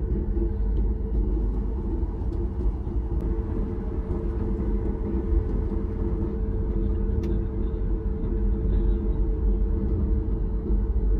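Cabin noise inside a Boeing 737 MAX 8: a steady low rumble from the engines and the air around the airliner, with a few faint ticks.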